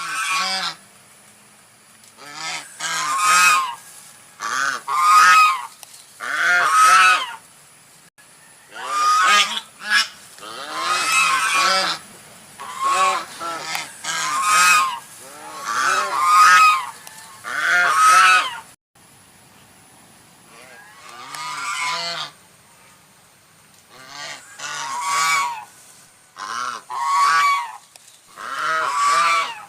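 Large white waterfowl honking over and over: about twenty loud, nasal honks, some single and some in quick pairs, with a short pause about two-thirds of the way through.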